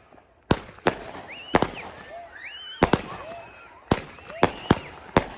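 Multi-shot consumer firework firing shot after shot: about ten sharp bangs, several in quick pairs, with whistling tones rising and falling between them.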